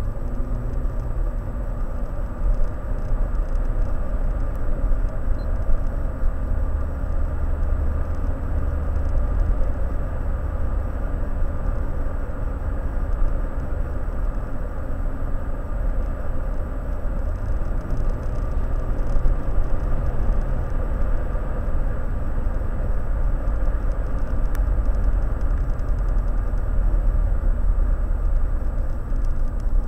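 Steady road and engine noise of a car driving at speed, a low rumble heard from inside the cabin.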